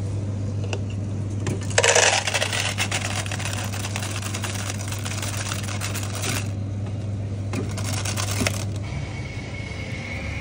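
Self-serve coffee machine dropping ice cubes into a plastic cup, a loud clatter in two spells over the machine's steady hum. Near the end the hum changes as the machine starts pouring coffee over the ice.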